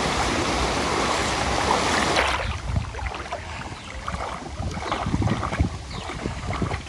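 Flowing floodwater rushing and splashing while someone wades through it: a loud even rush for the first two seconds or so that stops suddenly, then irregular sloshing and splashes.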